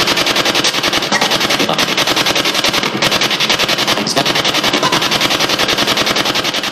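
SB7 spirit box sweeping rapidly through radio stations: loud radio static chopped in a fast, even rhythm.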